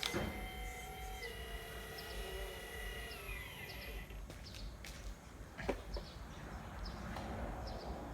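Whine of a radio-controlled model excavator's hydraulic pump, dropping in pitch in two steps and stopping about four seconds in, followed by a few sharp clicks.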